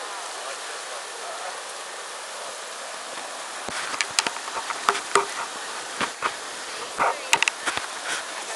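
Whitewater rushing through a river rapid, a steady hiss. From about halfway, irregular sharp splashes and knocks come in as the paddle strikes the water and spray hits close by.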